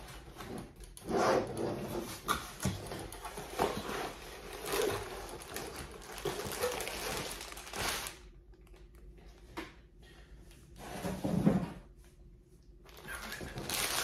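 Cardboard box and clear plastic bags of building bricks rustling and crinkling as the box is opened and emptied, with a short low thump about eleven seconds in.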